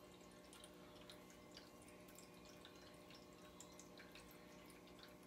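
Near silence: room tone with a steady low hum and faint, scattered tiny ticks.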